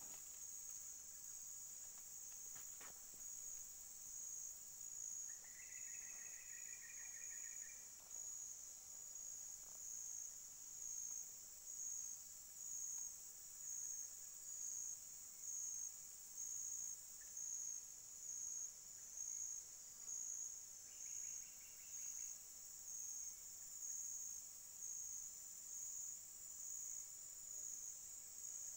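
Forest insects keep up a steady, high-pitched buzzing that begins to pulse about once a second from about ten seconds in. Two brief, lower trills break in, at about six and about twenty-one seconds in.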